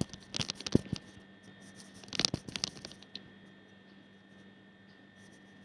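Two short clusters of clicks and scratching noises, the second about two seconds in, over a faint steady electrical hum that carries on alone afterwards.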